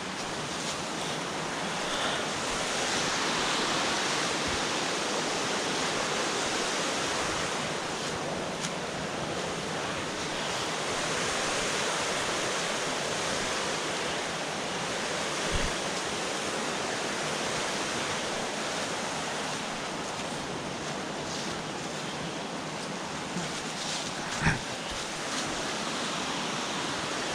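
Steady rushing of a river's running water, swelling and easing slowly, with a couple of brief knocks, one near the end.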